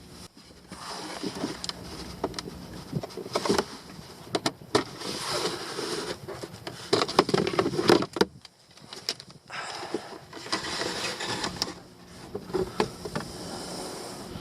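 Rustling and scraping of parts being handled by hand, broken by scattered clicks and knocks, the loudest cluster a little past the middle.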